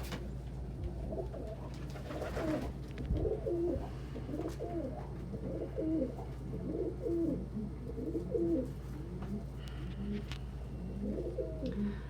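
Several domestic pigeons cooing, their coos overlapping one another, over a steady low hum. There is a brief rustle about two seconds in.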